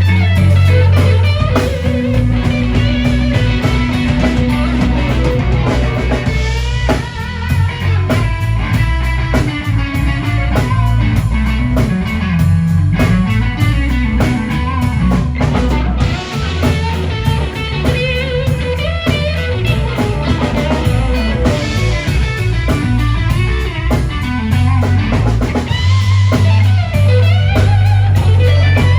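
Live blues-rock band playing an instrumental passage: electric guitar soloing with quick bending notes over drum kit and bass.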